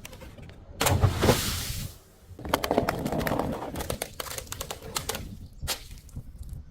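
Objects being crushed and breaking: a loud crunching burst about a second in, then a run of sharp cracks and crackles as the material gives way.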